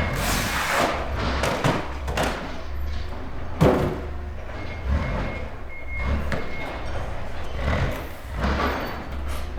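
Loading-dock ambience: a heavy vehicle engine runs low and steady while a reversing beeper sounds a run of short high beeps about five seconds in. Clanks and bumps of freight handling come through it, the loudest a sharp knock about three and a half seconds in.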